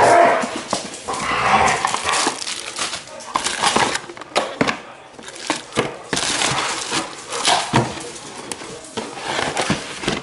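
A cardboard takeout lunch box being opened by hand, with paper wrapping rustling and a plastic food container being handled: irregular crinkling and crackling with many small clicks and knocks.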